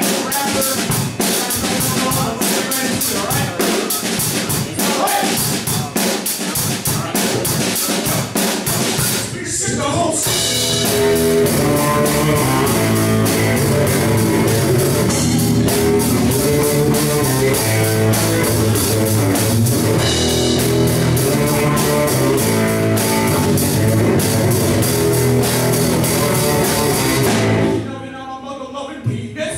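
Live rock band playing: drum kit with electric guitars and bass. It opens drum-heavy with cymbals, breaks off briefly about ten seconds in, then the full band plays with sustained bass and guitar notes before a short drop near the end.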